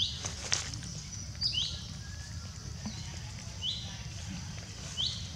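A bird calling over and over in short, high notes that slide downward, about five of them. A couple of sharp clicks or rustles come near the start.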